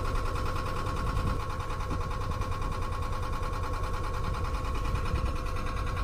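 A sailboat's inboard engine running steadily, with an even mechanical pulse and a steady whine. Gusting wind rumbles on the microphone underneath.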